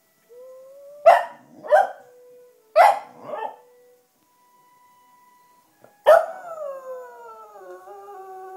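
Black Cocker Spaniel giving four short barks in two quick pairs, then a long howl starting about six seconds in that slides slowly down in pitch.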